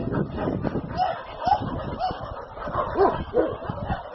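A dog giving several short, high yips, one after another.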